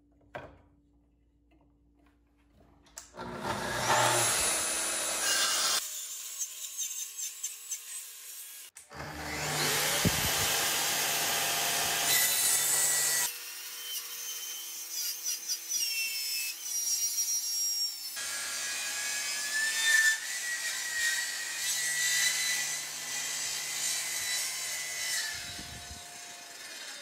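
Festool plunge track saw cutting a bevel into a thick wooden slab: the motor whines and the blade rasps through the wood in several separate stretches of cutting, the first starting about three seconds in, with the motor's whine falling away between cuts.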